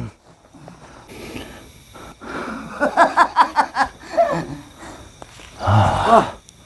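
A man's wordless vocal sounds: a quick run of short voiced grunts, then a loud drawn-out cry falling in pitch near the end.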